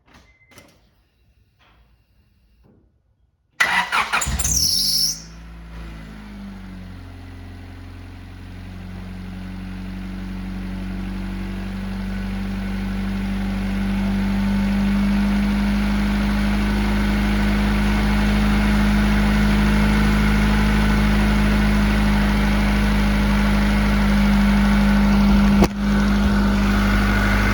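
A 1996 Honda Accord engine, freshly rebuilt with a valve job and new timing belt, starts about three and a half seconds in with a brief high squeal at start-up. It then settles into a steady idle that grows louder over the next several seconds and holds.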